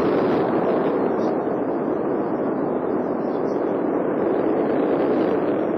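Soyuz-U2 rocket engines at liftoff: a loud, steady, dense rumble that eases slightly near the end.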